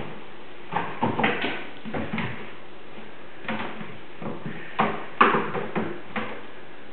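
Kittens scampering on a roof, heard from the room below: irregular runs of thumps and scrabbling paw knocks, the loudest burst about five seconds in.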